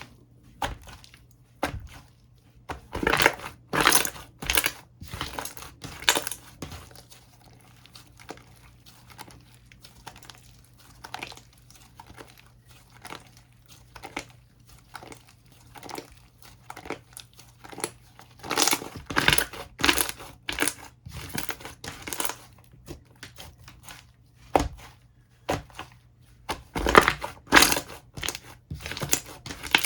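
Slime being squeezed, pressed and stretched by hand, giving many short pops and crackles. There are three louder stretches: about three seconds in, around nineteen seconds in and near the end.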